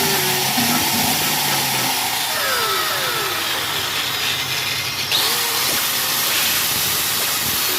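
DeWalt electric angle grinder running steadily at full speed with no load, its motor giving a loud even whir and hiss. The grinder is being test-run after a broken wire in its switch circuit was found.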